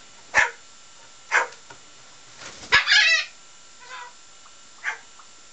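Pet corella giving a run of short bark-like calls, mimicking a dog: five brief yaps about a second apart, the one around the middle longer, loudest and wavering in pitch, one a little later faint.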